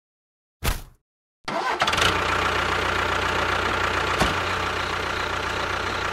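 A short burst, then an engine starting about one and a half seconds in and running at a steady idle, with a single sharp click about four seconds in.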